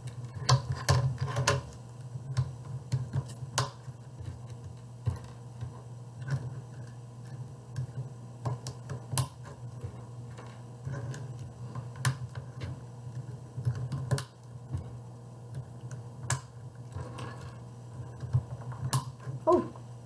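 Irregular small plastic clicks and taps as coloured plastic tiles are fitted onto a Rubik's Cube and the cube is handled against a tabletop, over a steady low hum.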